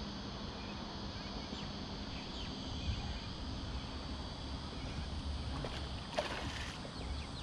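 A hooked flathead splashing at the water's surface in one short, sharp burst about six seconds in, over a steady background hiss and low rumble with a few faint bird chirps.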